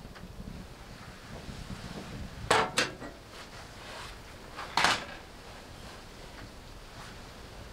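Door of a small steel wood stove being shut: two quick metal clanks about two and a half seconds in, then another single clank about two seconds later.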